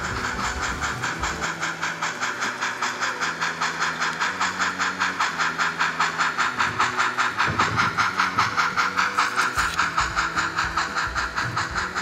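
Steam locomotive sound, chuffing steadily at about four beats a second with a hissy edge to each beat, as a narrow-gauge D&RGW steam engine runs with a freight train.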